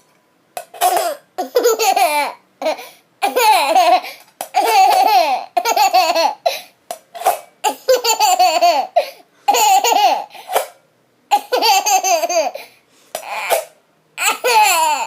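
A baby laughing in repeated bouts, high-pitched, with short breaths between them.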